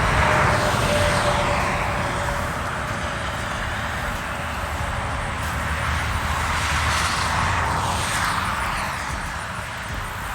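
Highway traffic: vehicles passing one after another, their tyre noise swelling and fading, with a steady whine that drops slightly in pitch over the first two seconds.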